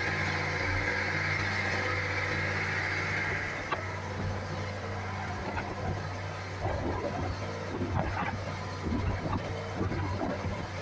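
An outrigger boat's inboard engine running steadily under way, with a high hiss close to the engine that drops away about four seconds in. From about six seconds in, irregular splashes come from the hull and outrigger cutting through choppy waves.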